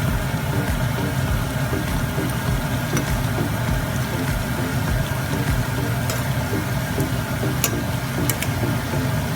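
A steady low mechanical hum like an idling engine or motor, with a few faint clicks near the end.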